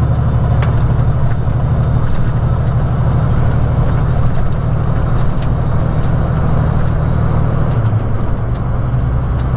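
Semi truck's diesel engine droning steadily, heard from inside the cab while driving, its note dropping a little about eight seconds in.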